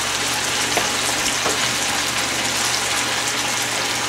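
Green vegetable strips and onion frying in a cast iron skillet: a steady sizzle with a few faint crackles.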